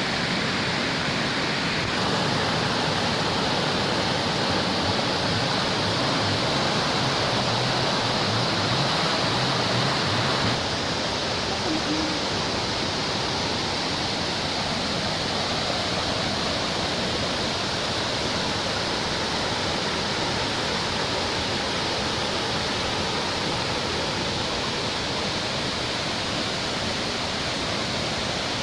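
Waterfall rushing, a steady dense roar of falling water that fills the range, dropping slightly in level about ten seconds in.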